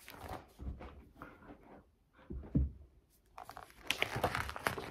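Paper pages of a picture book being handled and turned: faint rustling and crinkling, a soft low thump about halfway through, then denser page rustling in the last second and a half.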